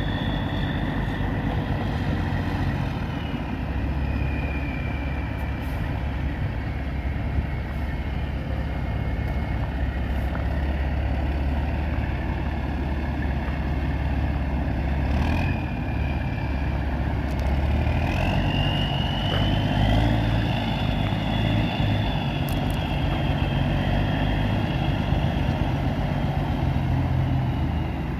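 A 2002 Sterling AT9500 semi truck's Caterpillar C12 six-cylinder diesel engine running steadily, with a faint high whine over it that rises about two-thirds of the way through.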